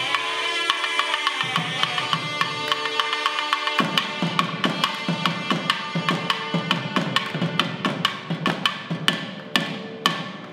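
Tamil temple music of the periya melam kind: a nadaswaram-like reed melody over a steady drone, with sharp thavil drum strokes. About four seconds in the drumming thickens into fast, dense strokes.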